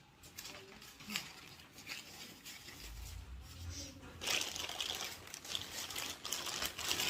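Packaging being handled, rustling and crinkling, with a few small clicks; it grows louder about four seconds in.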